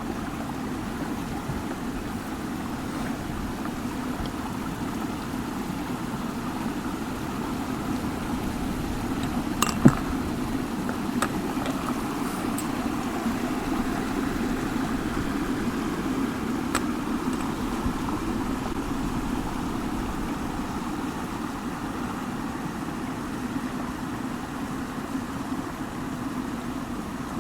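Steady rush of water falling from a spring-fed waterfall, with a few sharp knocks about ten seconds in and once more later.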